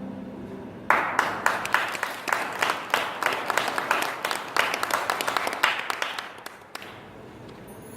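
An audience applauding: clapping starts about a second in and dies away after about five seconds.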